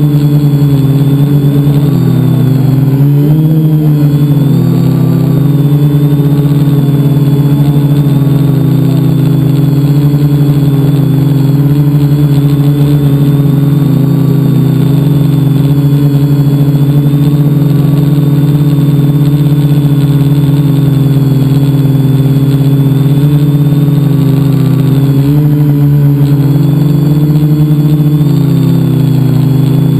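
Multicopter's brushless electric motors and propellers whining loudly and steadily, heard close up from a camera mounted on the craft. The pitch dips and swings back about three seconds in and again near the end as the throttle changes.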